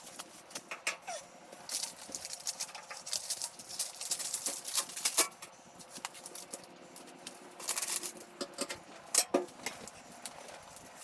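Masking tape being unrolled and pressed down by hand: irregular crackling and ticking, with sharper snaps about five and nine seconds in.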